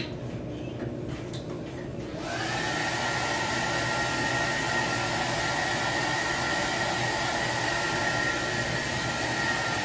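Handheld hair dryer switched on about two seconds in: its motor whine rises briefly as it spins up, then runs steadily with an even rush of air.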